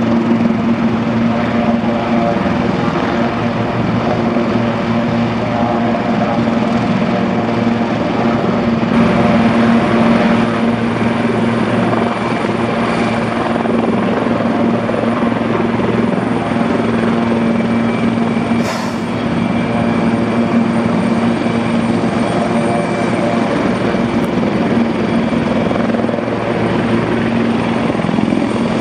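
Sikorsky S-76B helicopter's twin turboshaft engines and rotor running steadily, with a constant low hum and a thin high whine. There is a brief sharp tick about nineteen seconds in.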